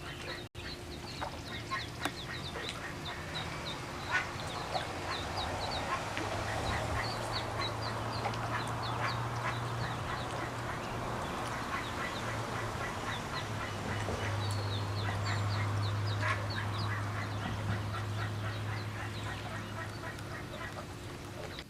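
Ducklings peeping: a run of many short, high notes repeated several times a second, over a steady low hum.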